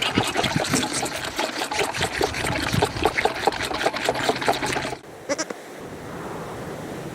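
Young livestock bleating: a busy flurry of many short, overlapping bleats that stops abruptly about five seconds in. After that comes a quieter background with a single brief bleat.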